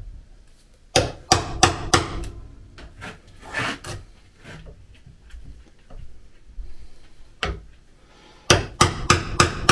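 Claw hammer striking a steel chisel, chopping a brass hinge recess into hard oak. Four sharp blows come about a second in, with a few softer taps in the middle, then a quick run of blows near the end.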